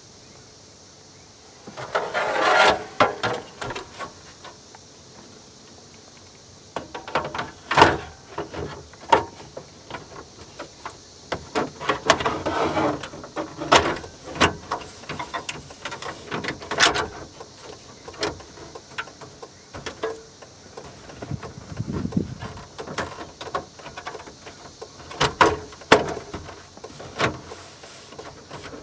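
Hands working at a pickup's plastic dashboard: irregular clicks, knocks and rattles as the dash trim bezel is fitted around a newly installed aftermarket stereo and pressed into its clips.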